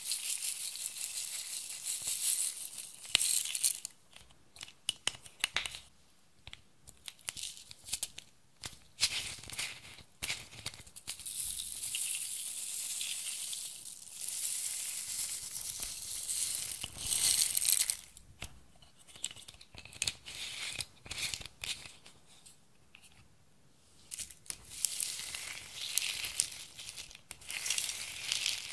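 Clear slime squeezed out of plastic bags onto a glass dish of beads and glitter, then pressed into the beads by hand: crackly crinkling and squelching, with scattered clicks of beads. The crackling comes in long loud stretches near the start, in the middle and near the end, with quieter stretches of single clicks between.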